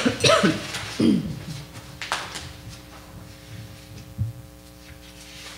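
Sheets of paper being handled, with a few sharp light taps about two seconds in and a soft knock on the desk near the end, over a faint steady electrical hum.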